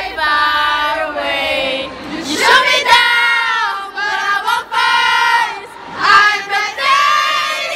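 A group of teenage girls singing loudly together in unison, in short held phrases with brief breaks between them.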